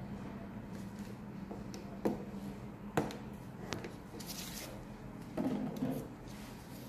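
Small plastic clicks and taps as the caps on a DTG printer's ink tanks are pressed shut by hand, three sharp ones a second or less apart near the middle, followed by a brief rustle. A steady low hum runs underneath.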